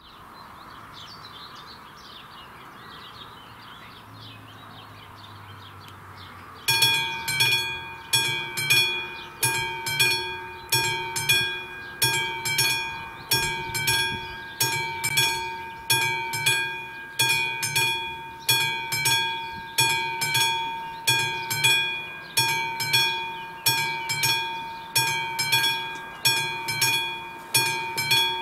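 Birds chirping over quiet outdoor background, then about seven seconds in a level crossing's classic warning bell starts ringing: rapid metallic strikes that swell in even pulses just under a second apart. The crossing's warning has been switched on ahead of an approaching train.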